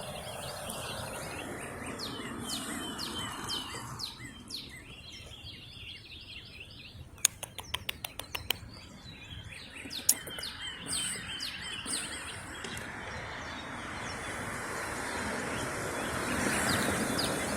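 Small birds chirping repeatedly over steady outdoor background noise that swells near the end. A quick run of about eight sharp clicks comes around the middle.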